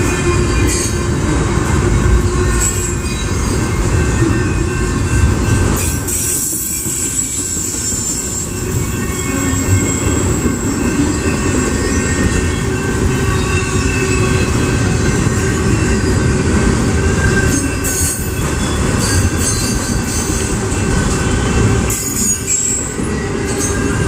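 BNSF freight train's cars rolling past with a steady, loud rumble of wheels on rail, and high-pitched wheel squeal that comes and goes.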